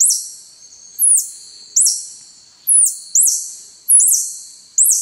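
Spectral tarsiers calling: a run of sharp, very high-pitched squeaks, about seven in five seconds, each starting suddenly with a quick upward sweep and trailing off. They are answering the recorded tarsier calls the guide has just played.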